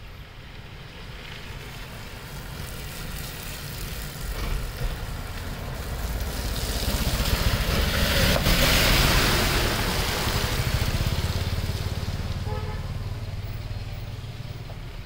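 A passing vehicle: a steady rumble and hiss that swells to a peak about eight seconds in, then fades away.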